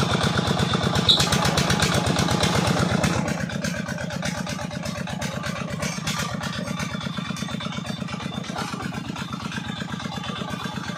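Old stationary diesel engine running a tube-well pump, with a steady, even, rapid firing beat. It grows quieter about three seconds in. There is one sharp click about a second in.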